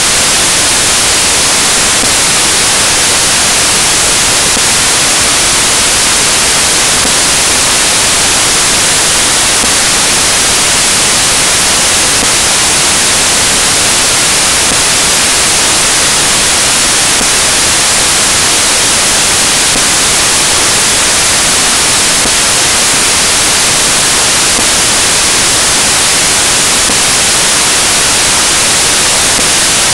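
Loud, steady static hiss, even and unchanging throughout, with nothing else audible through it.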